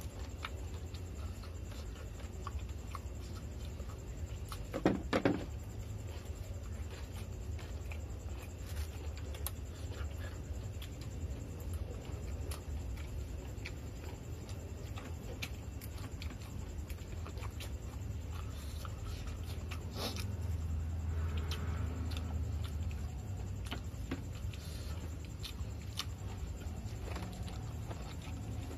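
Rain falling steadily in a patter of many small drops, over a low steady hum. A brief, louder double sound stands out about five seconds in.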